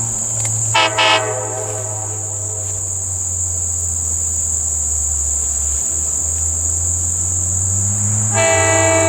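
Locomotive air horn sounding a chord: two short blasts about a second in, then a long blast starting near the end. A steady low drone and chirring crickets run underneath.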